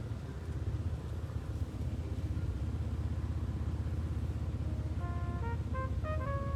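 A steady low rumble, with a melody of short pitched notes coming in about five seconds in.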